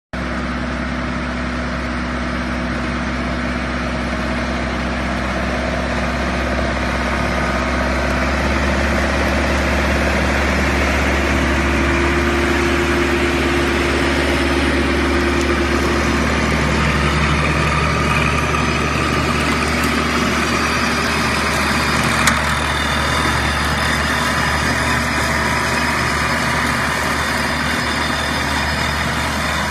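Small garden tractor's engine running steadily under load, driving a rear-mounted flail mower through tall dry grass. One sharp knock about three-quarters of the way through.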